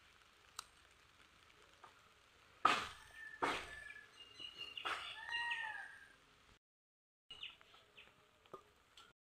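Scissors snipping okra pods off the plant and the pods knocking into a stainless-steel plate: a few sharp clicks, the loudest about two and a half seconds in. A bird calls a few times in the background around the middle.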